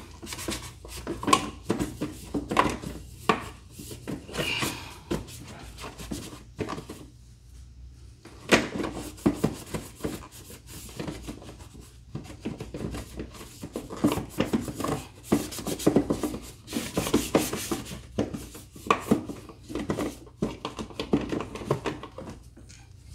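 A rag rubbing and wiping inside an ATV's plastic tail-light housing, in short irregular scrubbing strokes, with a pause about seven seconds in.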